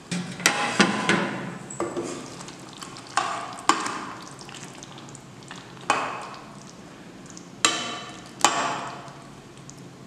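Steel ladle stirring thick curry gravy in a cooking pan, knocking against the pan about ten times with sharp clinks that ring briefly. Under them runs a faint, steady sizzle of the simmering gravy.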